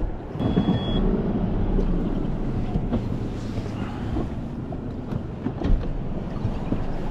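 Outboard motor of a Highfield Sport 390 RIB starting about half a second in, with a short high beep, then running steadily.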